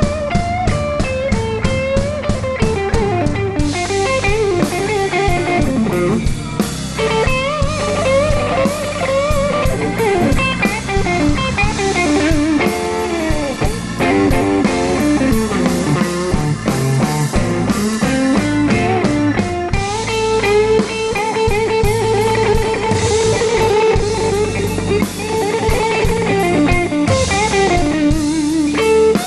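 Blues band playing an instrumental break: a lead electric guitar with bent notes over drums and bass, holding one long note in the second half.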